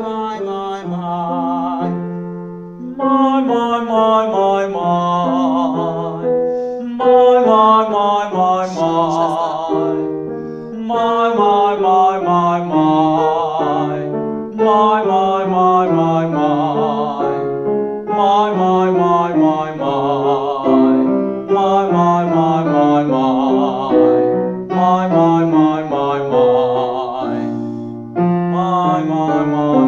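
A classically trained voice singing vocal warm-up scales with vibrato over piano accompaniment, in repeated phrases of about three to four seconds with short breaks between them.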